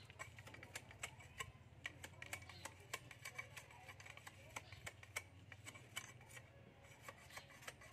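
Irregular light clicks and taps, several a second, from hand work on a bamboo fishing rod, over a faint steady low hum.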